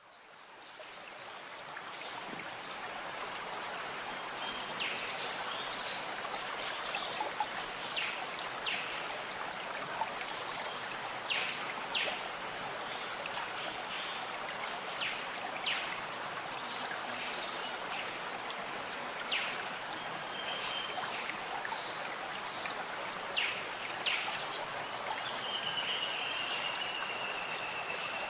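Birds chirping and calling over the steady rush of a waterfall, with many short, quick downward-sweeping notes and one longer whistle near the end.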